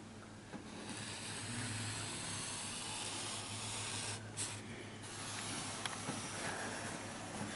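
Scratchy hiss of a marker pen being drawn along a wooden straightedge across a painted baseboard, easing off briefly about four seconds in, over a low steady hum.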